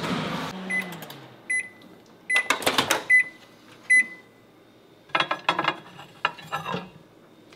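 Microwave oven beeping five times, about 0.8 s apart, with a clatter partway through. Near the end come clicks and knocks as a glass dish is taken off the turntable plate.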